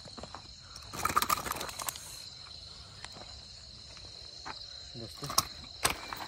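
Insects chirring steadily in one high, even tone. A burst of rustling about a second in and two sharp knocks near the end come from handling a freshly caught snakehead on dry ground.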